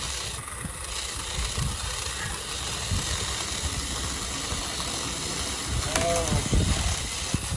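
Saker battery-powered mini chainsaw cutting through a tree branch, with a steady rasping chain noise.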